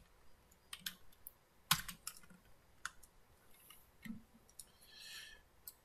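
Faint, irregular keystrokes on a computer keyboard, one louder click about two seconds in.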